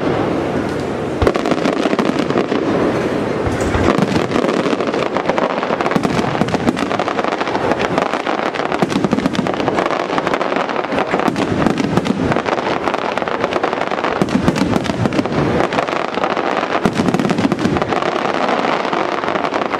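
Aerial fireworks display by La Rosa International Fireworks: a dense, continuous barrage of overlapping shell bursts and crackle, with no let-up.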